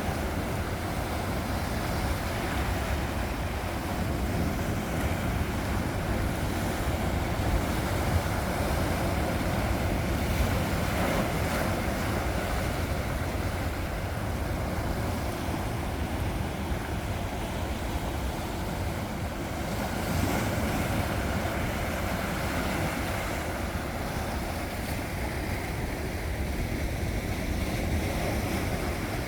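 Sea waves washing onto the shore in a steady, continuous wash, with wind rumbling on the microphone.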